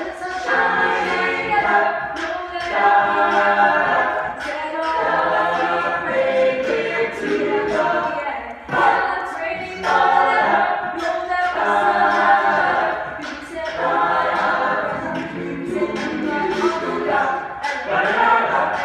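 A mixed-voice a cappella group singing, with a woman's lead voice over the rest of the group's backing harmonies.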